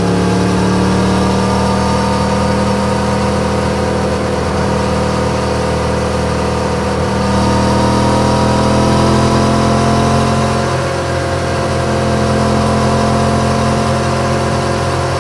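Yamaha MT-10's crossplane inline-four engine running steadily at highway cruising speed, with wind rush over it. The engine note rises a little about seven seconds in and eases back around eleven seconds.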